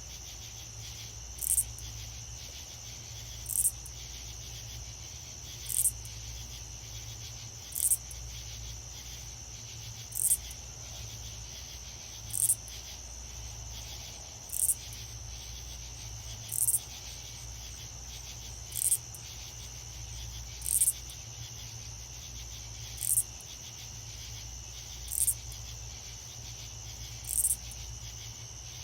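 Crickets trilling steadily in a night-time-style ambience, with a short, very high chirp repeating evenly about every two seconds as the loudest sound, over a faint low hum.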